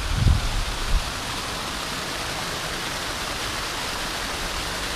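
Water pouring over a small concrete dam spillway into a creek pool: a steady rushing. A few low thumps on the microphone in the first second.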